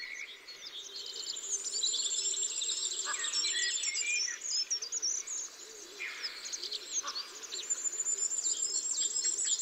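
Small songbirds chirping and calling in quick short notes, over a thin, steady, high insect-like trill.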